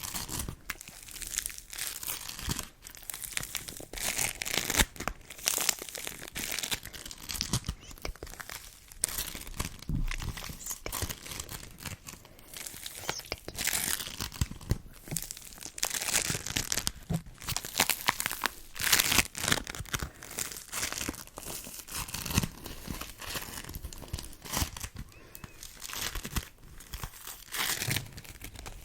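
Sticky play material handled close to the microphone: a dense, irregular run of crackling and tacky peeling sounds as it is pressed and pulled apart.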